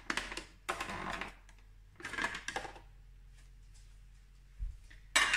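Clear plastic splash guard being lifted off a stand mixer's steel bowl and handled, giving short plastic clatters and rattles in three quick bursts, then a louder clatter near the end. The mixer is switched off.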